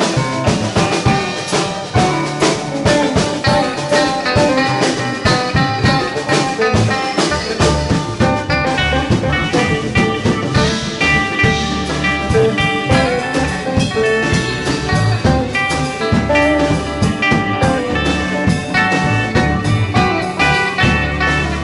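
Live band playing a steady groove on electric guitars, bass guitar, drum kit and electric keyboard.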